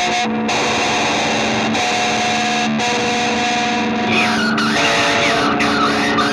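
Music led by a heavily distorted electric guitar holding sustained notes. A wavering, bending higher line comes in about four seconds in.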